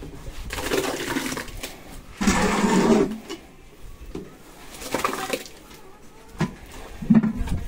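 Dry ground grain feed poured and scooped with a steel pail into a plastic tub, rushing and rattling in about four bursts.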